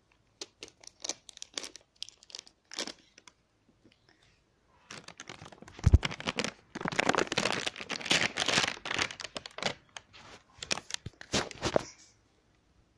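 Paper sachet of baking soda being handled and torn open: sparse crinkles at first, then from about five seconds in, a dense stretch of crinkling and tearing. There is a single heavy thump about six seconds in.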